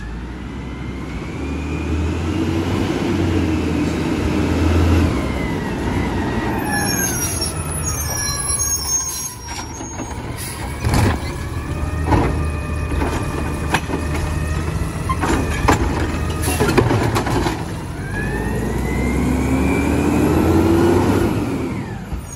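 Natural-gas Mack automated side-loader garbage truck working a curbside pickup. Its engine and hydraulic whine rise and fall as it pulls up. About halfway through, the lift arm grabs and dumps a trash cart with several metallic clanks and bangs, and near the end the engine revs again with a rising whine.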